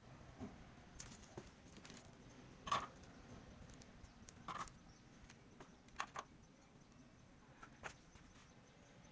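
Faint, scattered light clicks and taps, about eight or nine in all, the loudest about three seconds in and a quick pair near the middle, over a low hiss: small parts and tools being handled during a TV repair.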